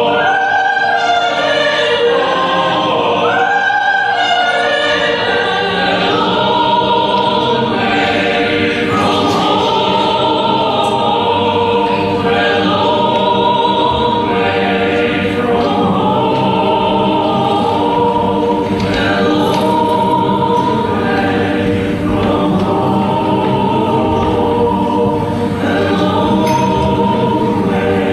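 A choir singing, many voices moving together through long, held chords.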